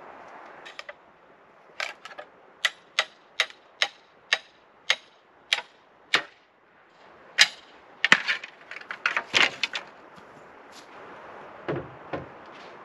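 Hammering: about ten sharp, evenly spaced blows at roughly two a second, then a quicker, irregular flurry of knocks about eight seconds in, and two last knocks near the end, over a steady background hiss.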